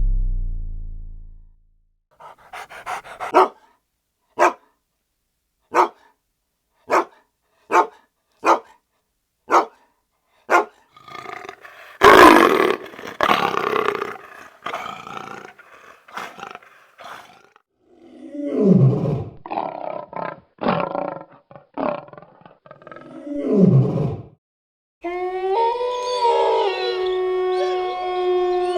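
A dog: a run of single barks about one a second, then a louder, harsher stretch of barking, then deep growls, and a long howl starting near the end. A low tone fades out at the very start.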